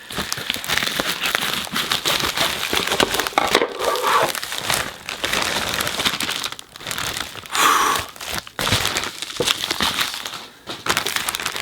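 Packing material crinkling and rustling as it is handled and pulled out of a shipping box, in repeated stretches broken by short pauses.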